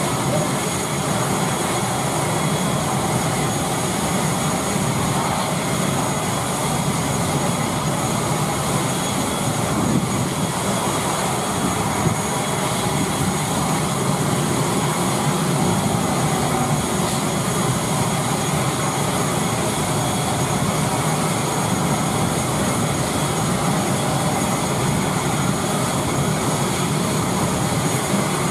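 Steady running noise of a parked ATR 72 turboprop's engine: an even rush with a high, constant whine over it, unchanging throughout.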